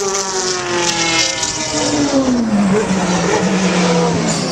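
Race car engine at high revs passing by, its note falling steadily as it goes past and away, then holding at a lower pitch near the end.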